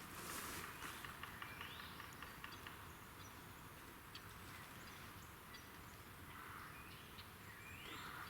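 Two faint gobbles from a distant wild turkey tom, each a short rattling call, one about two seconds in and one near the end.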